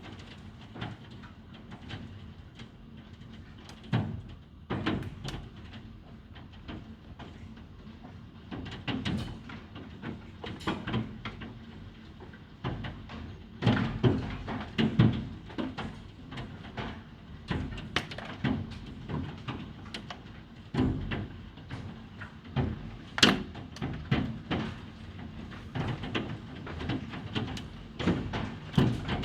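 Hailstones striking a hard surface, irregular knocks and clatters, a few a second at times, some much louder than the rest.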